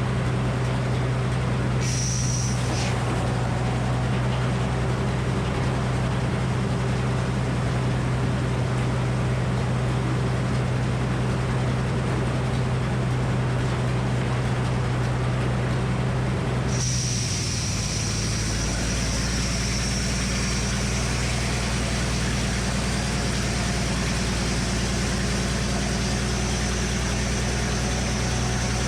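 The engine and spinning blade of a Frick circular sawmill with a 48-inch saw, running steadily. About two-thirds of the way through, the engine note drops slightly and a high whine comes in.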